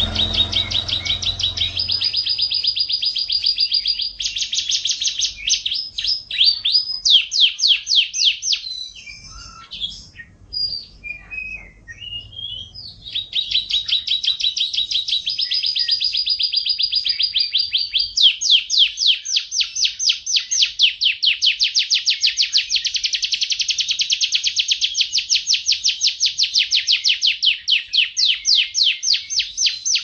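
Domestic canary singing a long song of fast, high rolling trills and runs of repeated notes, with a short broken pause near the middle before the trills resume.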